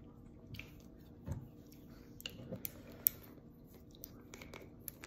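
Mouth sounds of a person tasting hot sauce off a plastic spoon: faint lip smacks and small wet clicks, with a soft knock about a second in and a sharp click about three seconds in.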